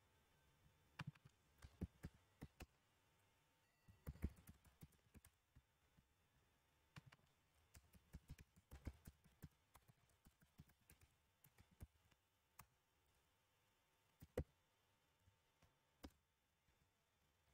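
Faint, irregular clicks of computer keyboard keys being typed. They come in short runs, with pauses and a few single clicks in between.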